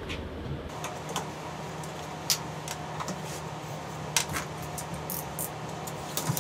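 Small clamps being released and taken off a glued-up wood inlay strip: scattered sharp clicks and clacks a second or so apart, over a steady low hum.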